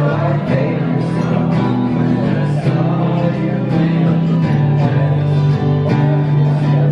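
Live guitar music, with long held low notes underneath that change about once a second.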